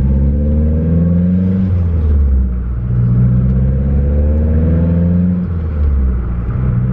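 2009 Mazdaspeed 3's turbocharged 2.3-litre four-cylinder, with a catted downpipe, resonators deleted and the stock muffler, accelerating hard through the gears. Heard from inside the cabin with the windows down. The engine note climbs, drops at a gear change about two seconds in, climbs again, drops at a second shift near the five-and-a-half-second mark, and starts climbing once more.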